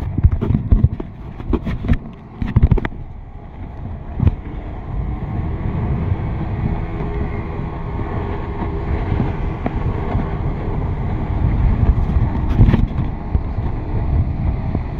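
Wind buffeting the microphone over a steady low rumble with a faint hum, typical of a tow speedboat's motor under way. Sharp knocks and bumps during the first few seconds.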